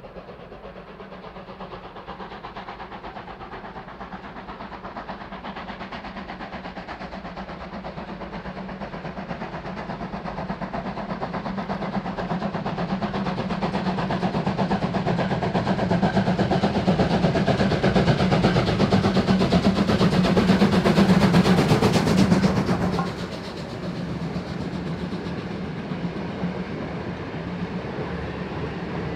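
Steam locomotive 01 519 working hard uphill with a passenger train, its exhaust beats growing steadily louder as it approaches. It passes a little over twenty seconds in, where the sound drops sharply, and the coaches then roll by with a steadier rumble.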